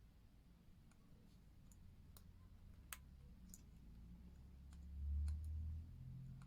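Light, scattered clicks of small metal watch parts and tweezers being handled as the pusher buttons are fitted into the watch case, with one sharper click about three seconds in. A dull low bump comes about five seconds in.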